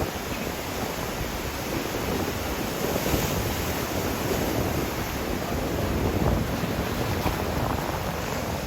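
Ocean surf breaking on the beach, a steady rush that swells slightly as waves come in, with wind buffeting the microphone. The swell is building ahead of an approaching typhoon.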